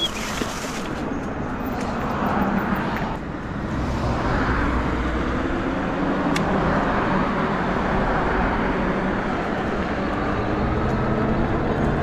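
Steady rush of wind on the microphone with fat-tyre road noise from a Nakto F6 electric fat bike cruising under throttle, with a brief stronger rush about a second long at the start.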